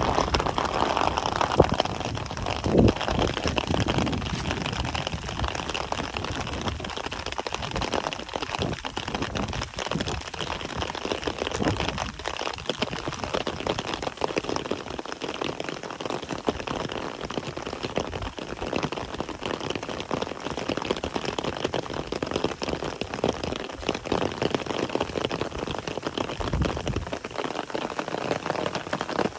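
Rain falling steadily, with many separate drops heard. A few louder knocks come in the first three seconds.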